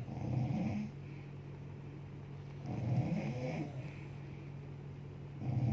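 A sleeping woman snoring: three rough snores, about every two and a half to three seconds, with a steady low hum between them.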